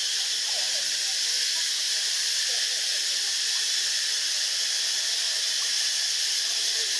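A steady high-pitched hiss, even in level, with a few faint short gliding calls scattered through it.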